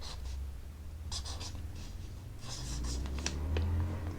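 Writing by hand on paper: short scratchy pen strokes in bursts, over a low steady hum.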